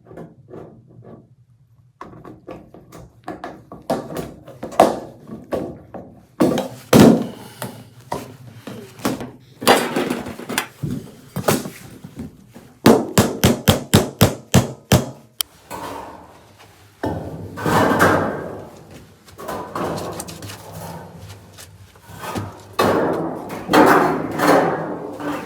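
Hand-tool blows knocking on wood: irregular single strikes, then a quick run of about a dozen strikes in the middle, followed by rougher scraping knocks toward the end.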